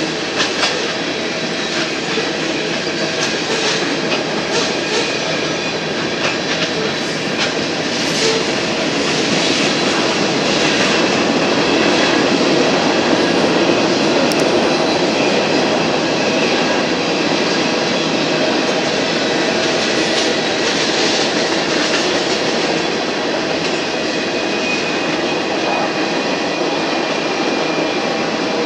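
Freight cars of a Union Pacific manifest train rolling past steadily: a continuous rumble and rattle of steel wheels on rail, with scattered clicks as wheels cross rail joints.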